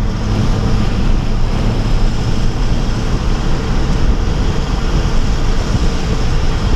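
Steady rush of wind and tyre noise on wet pavement inside a 2011 Honda Civic Si's cabin at track speed, with the driver's window open. The low engine hum drops away about a second in, leaving mostly the wind and road rush.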